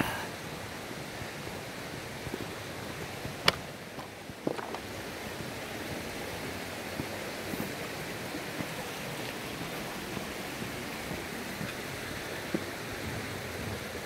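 Steady rushing of a rocky mountain stream, with a few faint sharp clicks in the middle and near the end.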